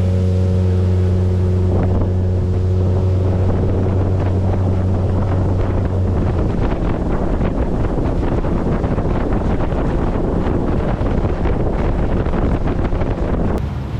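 A boat motor running steadily under way, with wind buffeting the microphone. About six seconds in, the engine's low hum fades under a rough rush of wind and water, which drops away abruptly just before the end.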